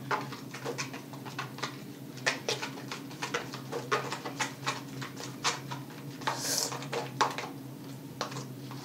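Shampoo-and-shower-gel slime being squished and kneaded between the fingers close to the microphone: irregular wet clicks and smacks, a few a second, which are loud.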